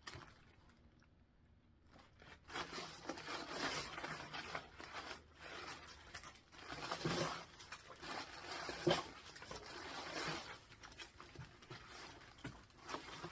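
Paper cross-stitch patterns in plastic sleeves rustling and crinkling as they are handled and taken out of a cardboard box. The rustling starts about two seconds in and carries on unevenly, with a couple of sharper crackles past the middle.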